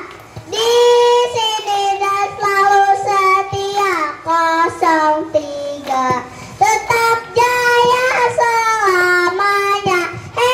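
A child singing a melody in long held notes that slide from one pitch to the next, with little accompaniment heard under the voice.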